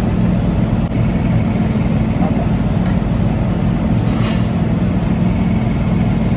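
A steady low mechanical hum and rumble, with one short sharp sound about four seconds in.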